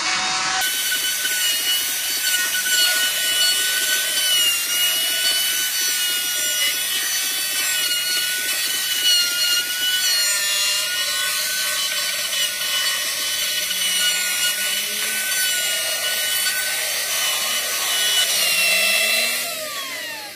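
Handheld electric router running at full speed and cutting wood, a steady high whine with the hiss of the bit in the timber. About nineteen seconds in it is switched off and winds down, its pitch falling.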